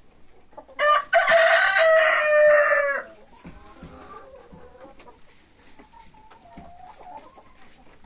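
A rooster crows once about a second in, loud and close: a short first note, then a long held note that falls slightly, about two seconds in all. Hens cluck softly afterwards.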